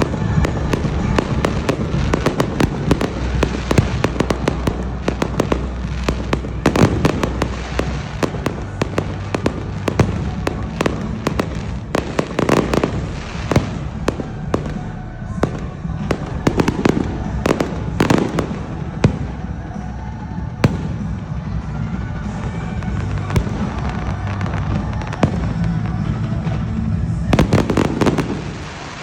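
Fireworks bursting in rapid succession, many sharp bangs and crackles one on another, over music with a steady bass line and crowd voices; the bangs die away near the end.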